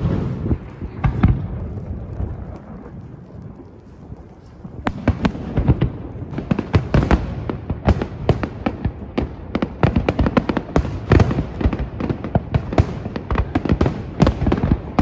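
Aerial fireworks shells bursting: a few scattered booms at first, then from about five seconds in a dense barrage of rapid bangs and crackles.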